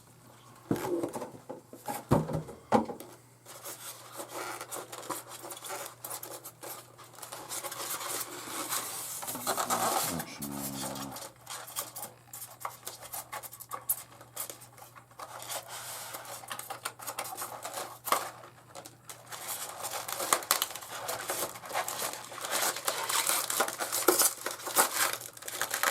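A cardboard box and plastic packaging being opened and handled: irregular rustling, crinkling, tearing and clicks, over a faint steady low hum.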